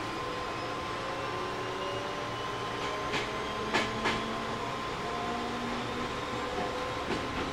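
Onboard sound of a JR East 205-600 series electric train: a steady noise with a faint steady tone and some faint slowly rising tones, and three sharp clicks a little past the middle.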